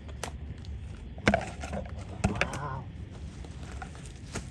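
A few sharp, brief cracks or knocks, about four spread over a few seconds, like wood or debris being broken or struck.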